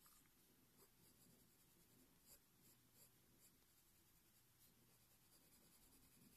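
Faint scratching of a coloured pencil on paper: short, quick strokes laying in fur.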